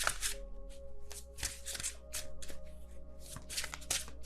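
Tarot cards being shuffled by hand: a quick, uneven run of papery card slaps and riffles, several a second. Faint background music runs underneath.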